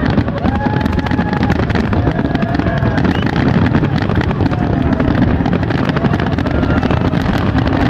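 Fireworks finale: a dense barrage of overlapping shell bursts blending into a continuous rumble, with a few short whistles gliding above it.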